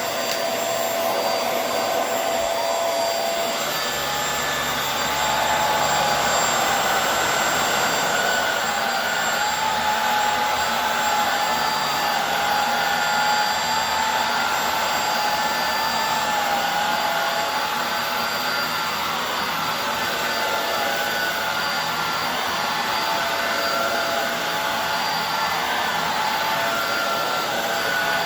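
Hoover Air Steerable upright vacuum cleaner running steadily on a rug, a continuous suction rush with a motor whine. The whine steps up slightly in pitch about four seconds in and then wavers a little.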